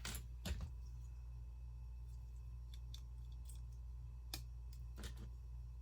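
Plastic Lego pieces clicking and tapping as they are handled and pressed together: a few sharp clicks, the loudest about half a second in and two more near the end, with fainter ticks between, over a steady low hum.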